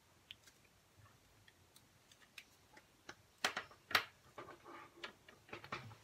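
Scattered light clicks and taps, sparse at first and busier in the second half, the two loudest about three and a half and four seconds in: a felt-tip marker and folded paper being handled on a tabletop.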